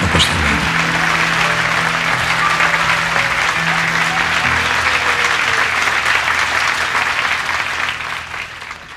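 Audience applause over sustained low musical notes, fading out near the end.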